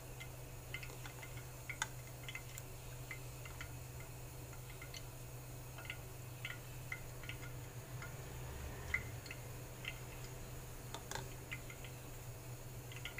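Faint, irregular light ticks over a steady low hum.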